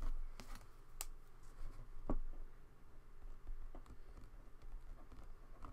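A few light clicks and taps as a pen is picked up and handled over a paper planner, then faint pen-on-paper writing.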